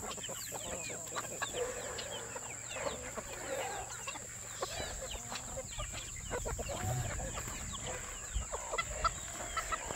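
A flock of chickens clucking, with many short calls overlapping.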